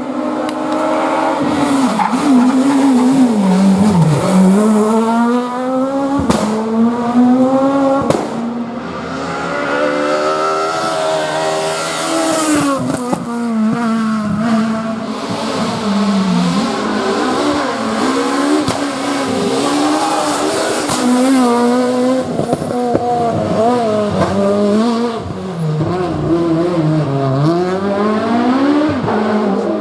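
Renault Clio S1600 rally car's naturally aspirated 1.6-litre four-cylinder engine at high revs, the pitch climbing and dropping again and again as it accelerates, shifts and brakes. A few sharp cracks stand out, in the first half and about halfway through.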